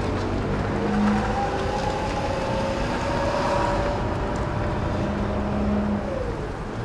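Mercedes-Benz CLK 320's 3.2-litre V6 and road noise heard from inside the cabin while driving. The engine note rises slowly as the car gathers speed, then falls away and the sound gets quieter about six seconds in.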